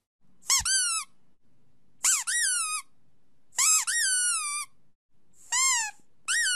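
A run of five high-pitched squeaks, each a quick rise then fall in pitch, about one every second and a half. The last begins near the end and is held longer at a steady pitch. It is a sound played to dogs to see how they react.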